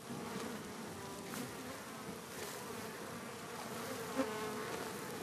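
A flying insect buzzing, its hum wavering slightly in pitch, with a brief louder moment about four seconds in.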